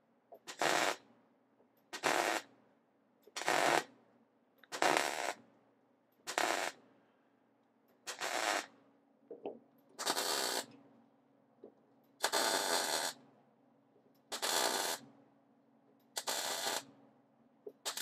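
Wire-feed (MIG) welder laying a series of short stitch welds, about ten crackling bursts of half a second to a second each with short pauses between. It is tacking a hinge bracket onto a car door.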